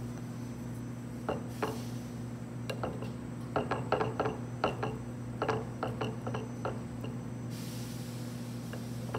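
A wooden spoon clicking and scraping against a bowl while scooping up curry and rice: scattered light knocks, thickest in the middle, over a steady low hum.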